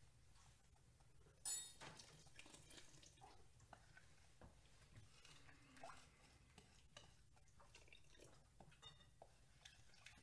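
Faint scraping and tapping of a wooden spoon against a mixing bowl as a flour-and-milk mixture is scraped into a pot of simmering soup, with one sharper clink about a second and a half in.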